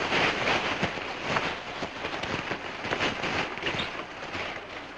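Footsteps of several men walking through dry leaves and brush: a steady, irregular crunching and crackling.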